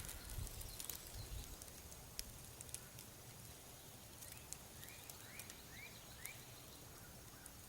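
Quiet woodland ambience with faint rustles and scattered small ticks. A bird gives a run of about five quick rising chirps about four to six seconds in.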